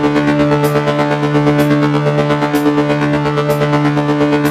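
Background music: a sustained chord held steady, with a light tick about once a second and no singing.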